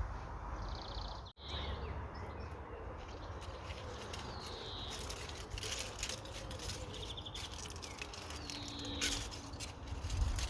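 Small birds calling: short buzzy high trills and downward-sliding chirps, repeated several times, over a steady low rumble of wind on the microphone, with scattered light clicks and rustles in the second half.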